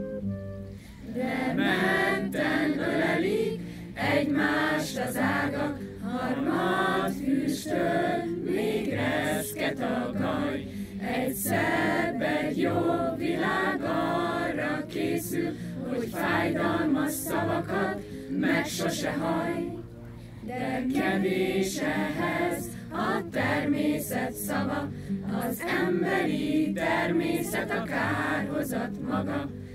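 A group of voices singing a song together, phrase by phrase, over a low steady accompaniment.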